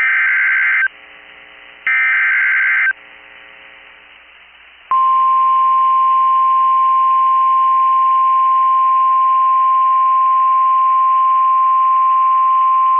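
NOAA Weather Radio Emergency Alert System signal: two harsh, buzzy SAME digital header bursts about a second apart. After a short pause, the steady single-pitch 1050 Hz weather radio alert tone starts about five seconds in and holds. It is the alarm that opens a new warning broadcast, here a severe thunderstorm warning.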